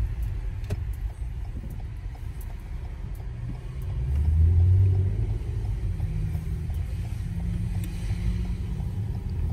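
Road and engine rumble of a Lexus heard from inside the cabin while it is driven along a street, with a brief swell about four seconds in.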